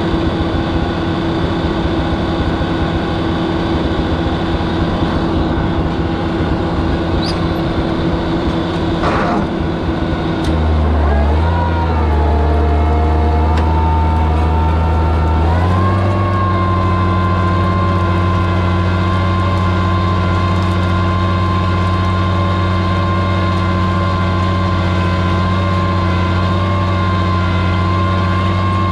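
Oliver 77 tractor's six-cylinder engine running steadily while pulling a plow. About ten seconds in the engine note changes and gets a little louder, and about five seconds later it settles into a new steady pitch.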